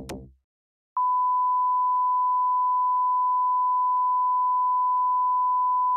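The last of a film soundtrack cuts off, then about a second in a steady electronic test-tone beep starts and holds at one unchanging pitch.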